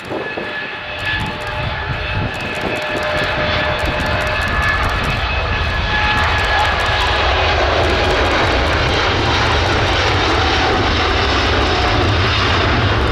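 Airbus A330 twin-engine airliner's jet engines spooling up to takeoff thrust for the takeoff roll. The roar builds over the first six seconds, then holds loud and steady, with a rumble under several steady whining fan tones.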